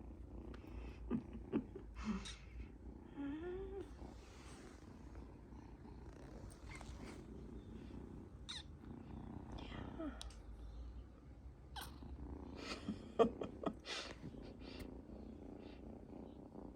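Kitten purring steadily, with a few short, high squeaks, including one rising squeak about three seconds in. Scattered sharp clicks, the loudest about thirteen seconds in.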